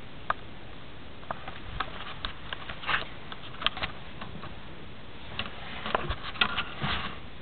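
Scattered small clicks and brief soft rustles from close handling, irregular and in two clusters, against a steady faint hiss.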